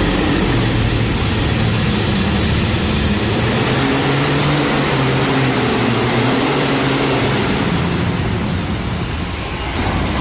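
Competition pulling tractor's engine running flat out under load, with a high turbocharger whistle above the engine note. The engine note drops away about seven seconds in and the sound eases off.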